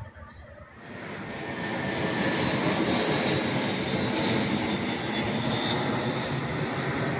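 Twin-engine jet airliner flying low overhead. Its engine noise rises about a second in, then holds loud and steady, with a faint high whine.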